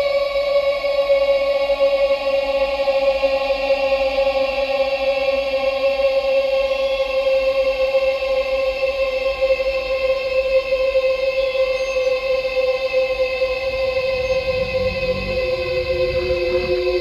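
Eerie ambient drone music of long held, choir-like tones whose pitch sinks slowly, with a lower note coming in near the end.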